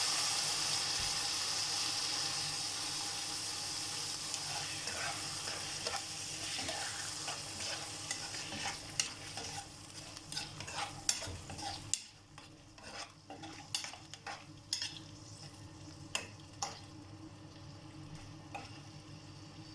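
Chicken liver sizzling in melted butter in a frying pan, loudest at first and dying down steadily. From about five seconds in, a utensil taps and scrapes the pan as the liver is stirred.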